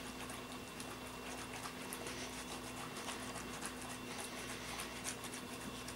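Faint rubbing with many small scratchy ticks: a salted lemon slice rubbed over the fingers to take off the garlic smell, over a low steady hum.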